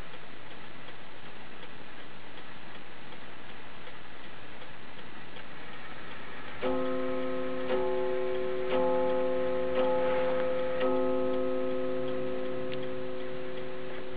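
Circa-1904 Ansonia 'La Mine' Royal Bonn porcelain mantel clock ticking, then about seven seconds in striking the hour five times, about a second apart, each note ringing on and slowly fading: it is striking five o'clock.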